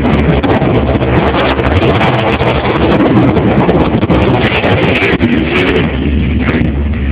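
Jet boat engine running hard and loud without letup, with wind buffeting the microphone.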